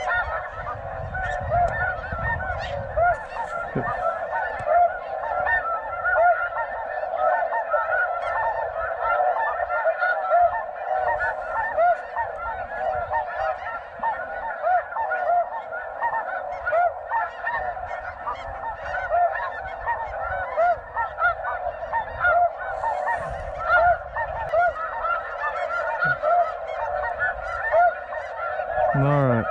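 Snow geese calling in a dense, unbroken chorus: many overlapping high yelping honks from a large flock.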